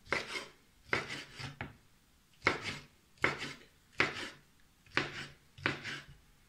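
Kitchen knife slicing boiled squid into rings on a wooden cutting board: eight even cuts, each a short slice ending in a tap of the blade on the board, about one every 0.8 seconds.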